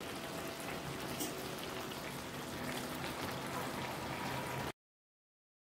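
Tomato, pepper and potato stew simmering in a frying pan: a steady bubbling hiss with small pops. It cuts off suddenly a little before five seconds in.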